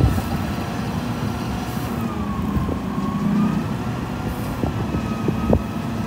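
Scania P310 gas-powered skip loader truck's engine idling steadily, with a faint whine that dips in pitch and rises back about halfway through.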